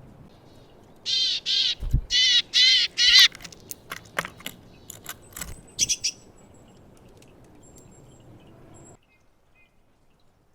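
Willow tit giving a run of about five harsh, nasal buzzing calls, followed by scattered sharp clicks and one short high note.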